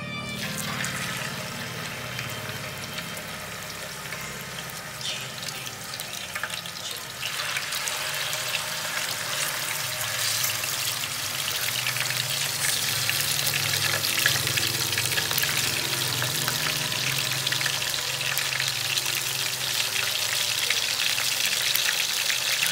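Pork slices with garlic sizzling and crackling as they shallow-fry in hot oil in a frying pan. The sizzle gets louder about seven seconds in and again around twelve seconds.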